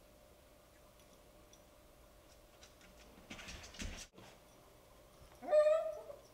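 A Bichon Frise gives one short, high-pitched bark that rises sharply, jumping at a door to be let out, after a few seconds of faint rustling.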